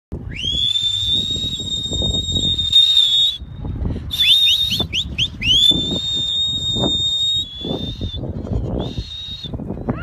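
A person whistling high to call goats: one long held whistle of about three seconds, then a quick run of short rising chirps, then several more held whistles, the last ones shorter. A rough, irregular low rumble runs underneath.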